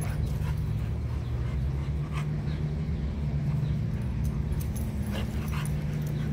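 Several dogs playing rough together, making dog vocal sounds, with short sharp sounds scattered through and a steady low hum underneath.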